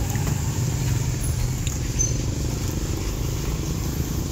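Low, steady rumble of a motorcycle engine running close by, with a couple of faint clicks about a second and a half in.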